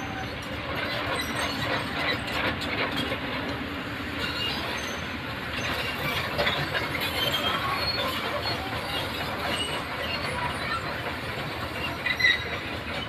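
Komatsu PC200 hydraulic excavator running, with many short metallic squeaks and clanks from its steel tracks and undercarriage over a steady machine noise as it moves and turns.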